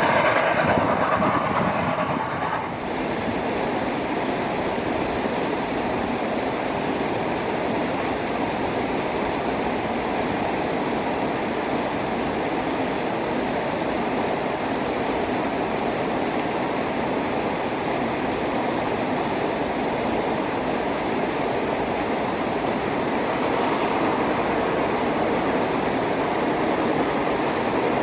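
A passenger train rolling steadily along the rails, a continuous rumble and rattle of wheels and cars. A louder, brighter train sound at the very start cuts off abruptly about two and a half seconds in.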